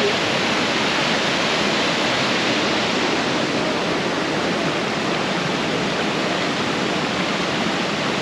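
Waterfall: a loud, steady rush of falling water that does not rise or fall.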